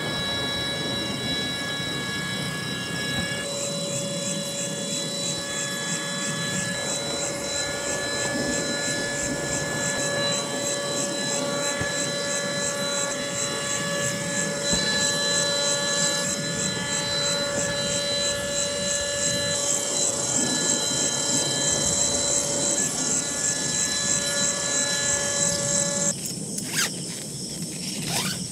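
Automatic electric air pump running steadily, a motor whine with a buzzy edge, inflating the Coody inflatable gear. Its tone shifts a few seconds in as it works against the rising pressure, and it cuts off abruptly near the end.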